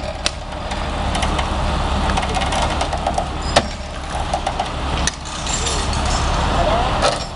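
A truck engine running steadily at idle while a winch cable drags an overturned car from its side back onto its wheels, with a few sharp clicks and knocks from the car body and cable as it rises.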